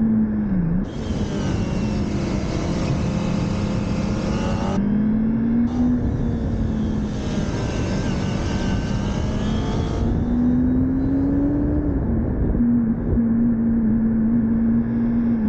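Motorcycle engine heard from an onboard camera while riding a circuit, its revs climbing and dropping through gear changes and corners over a constant rush of wind. The pitch dips about half a second in, climbs over the next few seconds, drops near the five-second mark, climbs again around ten to twelve seconds and then holds steady.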